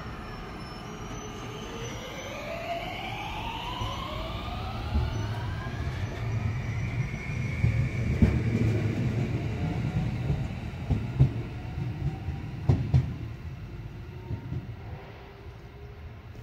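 JR West 521 series electric local train pulling away from the platform. Its traction motors give a whine that rises in pitch as it accelerates, then the rumble of the cars passing with a few clacks of wheels over rail joints, fading away near the end.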